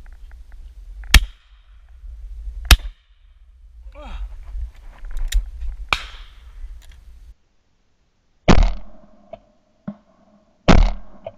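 A series of shotgun shots, sharp loud cracks: two about a second and a half apart, another a few seconds later, then, after a cut, two more about two seconds apart that ring briefly after each crack. Wind rumbles on the microphone through the first part.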